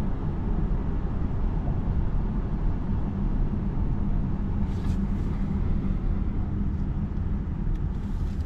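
Steady low rumble of tyre and road noise inside the cabin of a Citroen C5 Aircross plug-in hybrid driving at a steady speed.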